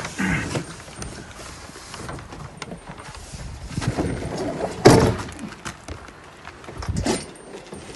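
Plastic-tubbed Gorilla Carts dump cart being flipped over and set down on its wheels: a few dull thumps and knocks, the loudest about five seconds in.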